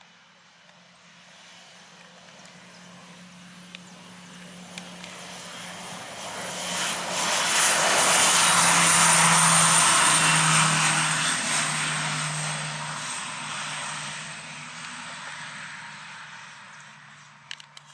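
Piper PA-46-M500's Pratt & Whitney PT6A turboprop at takeoff power, a low propeller drone under a high turbine whine. It grows steadily louder as the plane rolls past, loudest about halfway through, then fades into the distance.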